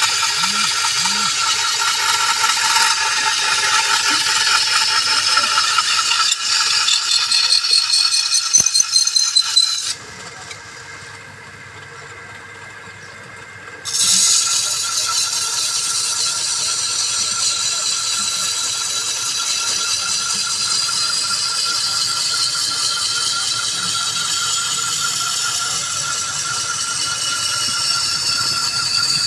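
A workshop machine running steadily with a rattle. It drops to a much quieter level for about four seconds in the middle, then picks up again.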